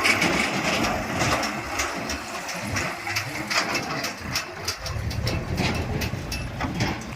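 Backhoe loader's diesel engine running at work, with repeated metallic clanks and rattles throughout. The sound drops off abruptly at the end.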